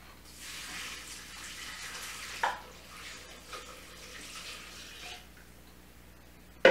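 Cooking liquid poured from a plastic bowl into the stainless-steel mixing bowl of a Monsieur Cuisine Connect kitchen machine: a steady splashing pour that tails off after about five seconds. A sharp knock comes at the very end.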